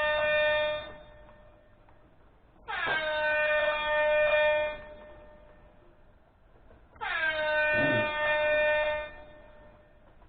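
A model-layout sound module playing an emergency-vehicle horn sample through a small speaker: three steady blasts of about two seconds each, roughly four seconds apart, each dipping slightly in pitch as it starts.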